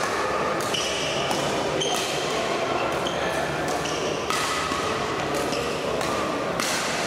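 Badminton hall during a training drill: a steady din of players' activity on the court, with short high squeaks and voices echoing in the large hall.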